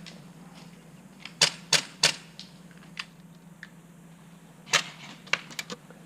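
Airsoft gun firing a string of sharp single shots in irregular groups: three in quick succession about a second and a half in, a fainter one a second later, and another quick cluster near the end.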